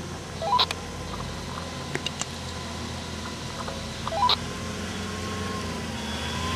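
Nissan Navara dual-cab ute's engine running steadily at low revs as it crawls up a muddy track. Two short, loud rising chirps stand out, one near the start and another about four seconds later.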